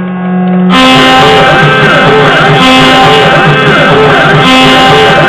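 Instrumental background music. It opens on a held low drone, and under a second in the full track comes in: plucked strings with repeated sliding pitch bends in an Indian-classical style.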